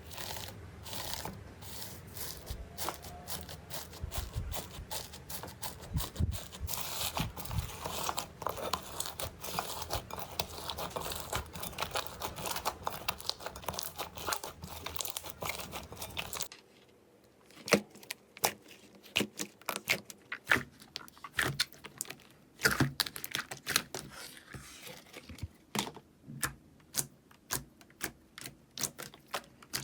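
Slime being squeezed and poked by hand, giving a dense run of small crackling clicks and pops. About sixteen seconds in the sound changes abruptly to a quieter stretch of sparser, sharper clicks and pops, as another slime is handled.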